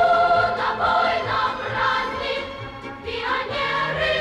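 Choral music: a choir singing held notes over instrumental backing.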